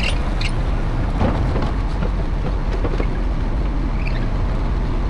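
Mini excavator's diesel engine running steadily as it drives up steel ramps onto the back of a tipper truck, with a few short knocks from the tracks and ramps.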